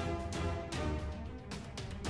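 Background music with a steady beat, drums and strong bass under sustained instrumental tones.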